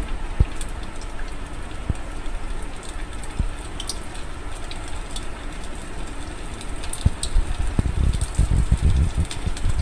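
Hot oil sizzling steadily as soya chaap pieces deep-fry a second time in a kadhai, with a few soft knocks near the end.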